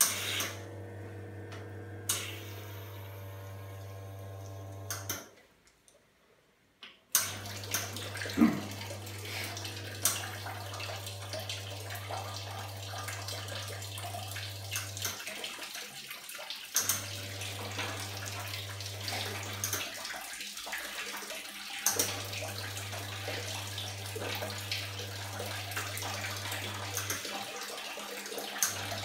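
Reneka Viva S two-group espresso machine flushing water through both group heads: a steady low pump hum with water splashing onto the drip tray. The hum stops for about two seconds near the start, then returns with the splashing, cutting out and back in three more times, with occasional clicks.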